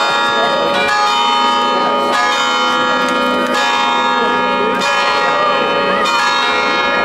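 Church bells pealing, several bells struck one after another and ringing on over each other, with a crowd's voices chattering underneath.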